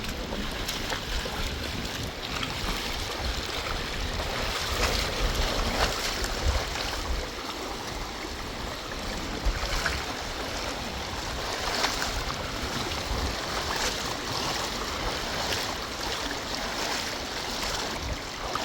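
Steady rushing of a swollen, fast-flowing river in flood, with gusts of wind rumbling on the microphone.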